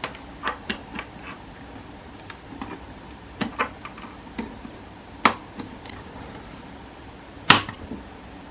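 Scattered small clicks and taps from a phone and charging cable being handled, with a sharper click about five seconds in and the loudest one near the end.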